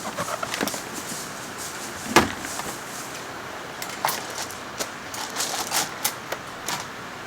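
Scattered small clicks and knocks over a steady hiss, with one loud knock about two seconds in.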